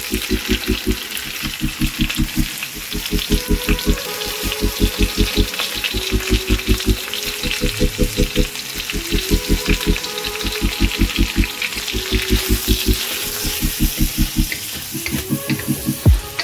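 Diced pork and corn kernels sizzling in hot oil as they are stir-fried in a wok with a wooden spatula. Under it runs background music with a quick, even beat.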